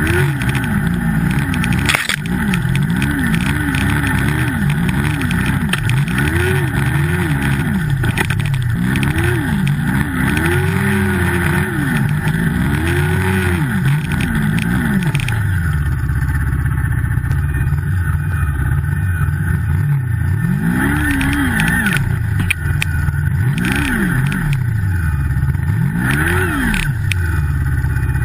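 Turbocharged Yamaha snowmobile engine revved up and down over and over, a rise and fall about once a second. It holds steadier for a few seconds around the middle, then rises and falls again near the end.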